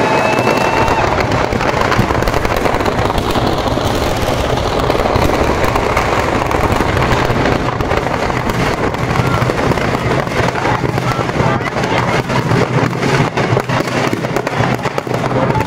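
Firecrackers packed inside a burning Ravana effigy going off in a dense, continuous crackle. The separate sharp pops stand out more clearly near the end.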